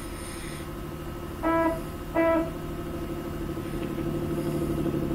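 Cartoon bus engine running with a steady, rapid chug. Two short horn honks, about a second and a half and two seconds in, are the loudest sounds.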